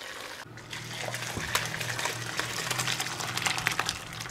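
Hot whey and curds poured from an aluminium pot into a cheesecloth-lined bowl: a steady gush of liquid with many small splashes as the curdled milk is strained.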